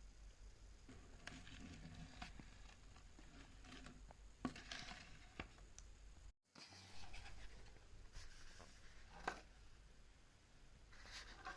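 Faint light taps, clicks and short rustles of small objects being handled, with a brief break about halfway through.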